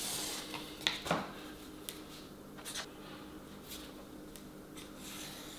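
Faint handling sounds of a loose vinyl plank being positioned on the floor and marked with a pencil: two sharper clicks about a second in, then a few light ticks, over a faint steady hum.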